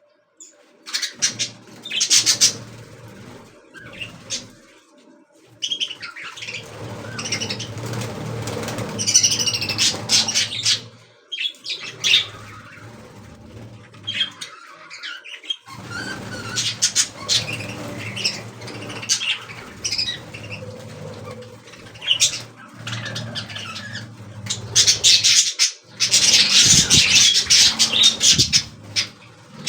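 Budgerigars chirping and chattering in irregular bursts, with rustling and fluttering among the calls, densest and loudest near the end.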